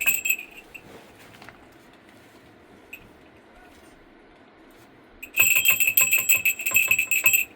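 A small metal bell rings briefly at the start, then rings rapidly and continuously for about two seconds near the end.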